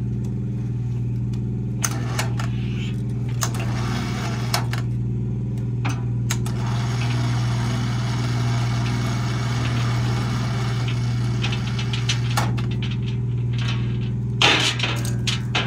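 Scattered metallic clinks and knocks as a large inserted-tooth circular sawmill blade, slung from a hoist chain, is tilted upright and hung on a steel bar, with a louder clank near the end. A steady low hum runs underneath.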